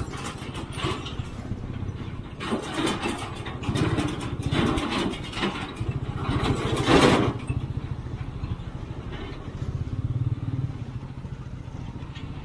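Motorcycle engine running at road speed, heard from the rider's seat as a steady, rapid low beat. A louder rushing noise swells over it from about two and a half seconds in and peaks about seven seconds in before dying back.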